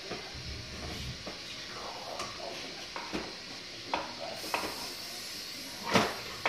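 Light plastic clicks and taps from a Barbie doll and dollhouse pieces being handled, a few scattered knocks with a louder one about six seconds in, over a steady hiss.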